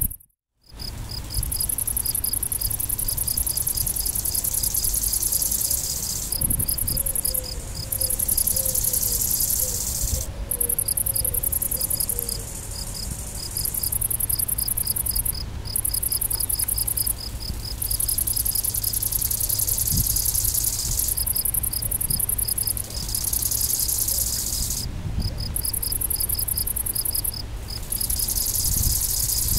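A great green bush-cricket and a European field cricket singing together, both stridulating with their wings. The bush-cricket's high, continuous buzz stops and starts in stretches of a few seconds, over the field cricket's steady chirping at about three chirps a second.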